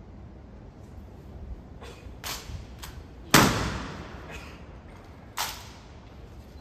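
Sharp impacts from an honor guard's rifle drill: a few light clacks, then one loud crack with a short echoing tail about three and a half seconds in, and another crack about two seconds later.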